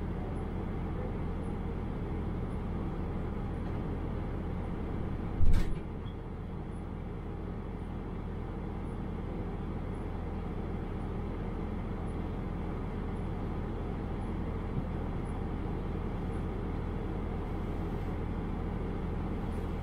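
Diesel railcar's engine idling steadily while the train stands at a platform. About five seconds in, a brief loud burst stands out above the hum.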